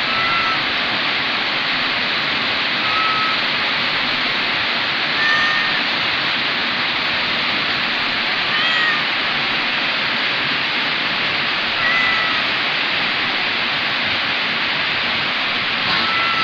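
Young kitten mewing: about six short, high mews spaced a few seconds apart, over a steady loud hiss.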